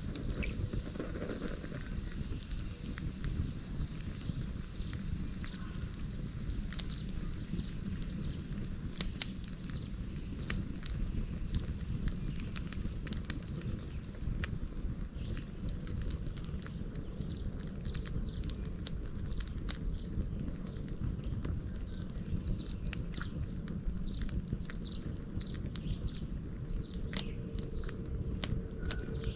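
Wood fire crackling, with frequent sharp pops scattered over a steady low rumble.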